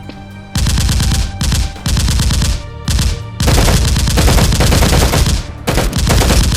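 Rapid automatic gunfire in about six bursts, the longest about two seconds long in the middle.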